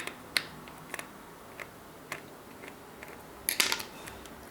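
Small hand tools clicking and scraping against a smartwatch's casing and its tiny strap screws. There are scattered light clicks, then a brief burst of scraping about three and a half seconds in.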